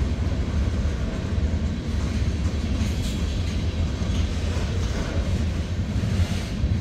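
Freight train cars rolling past: a steady low rumble of steel wheels on rail as a tank car and covered hoppers go by.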